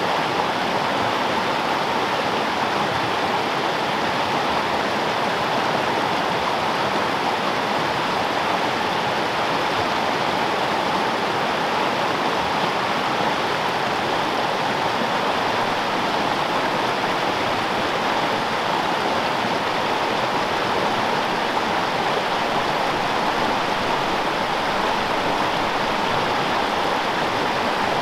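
Small freestone mountain stream running, a steady, even rush of water with no breaks.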